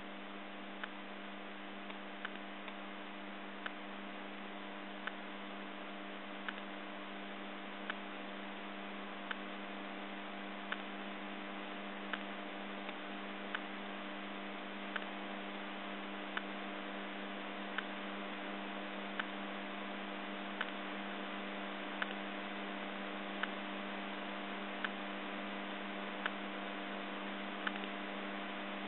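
Roomba robot vacuum running with a steady motor hum and whir, and a light click about every second and a half.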